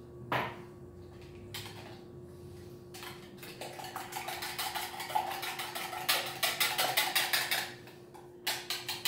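A wire whisk beating eggs in a glass bowl, clinking quickly and repeatedly against the glass. The strokes start in earnest about three seconds in, stop briefly near the end, then start again.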